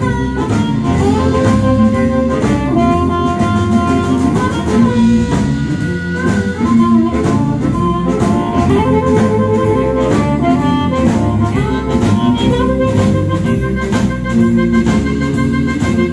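Live blues band playing an instrumental passage: amplified blues harmonica carrying bending, held lead lines over electric guitar, electric bass and a drum kit keeping a steady beat.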